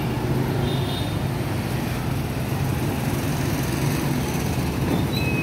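Street traffic: a steady low engine rumble from vehicles on the road.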